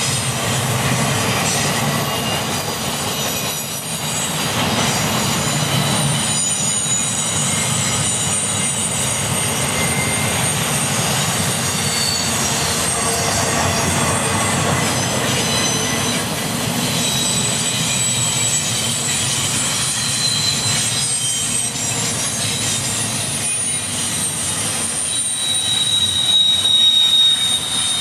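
Double-stack container train's well cars rolling past: a steady rumble of steel wheels on rail, with high-pitched wheel squeal coming and going over it, loudest near the end.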